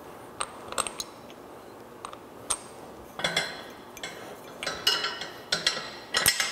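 Metal hardware clinking and clicking against the steel plow frame as the worm-drive lift motor is fitted to its mount: a few separate sharp ticks at first, then a denser run of clinks from about halfway through.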